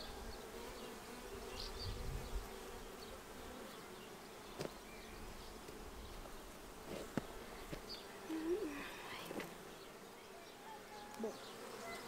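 Honey bees buzzing around an open hive and a bee-covered frame: a steady low hum, with one buzz bending up and down in pitch about eight and a half seconds in and a few faint clicks.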